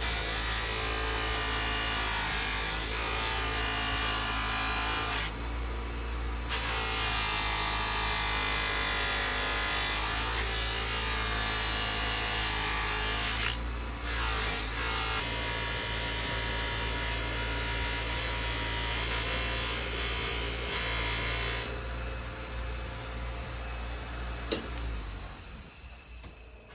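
Small rotary tool running a polishing wheel charged with rouge compound, buffing metal; the motor's pitch wavers as the wheel is pressed to the work and eased off, briefly dropping a couple of times. Near the end there is a sharp click and the motor runs down.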